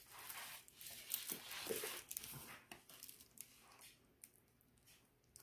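Faint rustling and crinkling of a diamond painting canvas and its clear plastic cover film being handled, mostly in the first half, then a few small ticks and near quiet.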